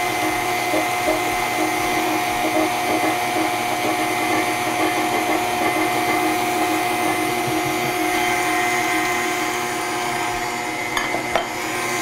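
Electric kitchen mixer running steadily with an even motor hum, beating mashed bananas into a banana bread batter of creamed butter, cream cheese, sugar and eggs. A couple of small clicks near the end.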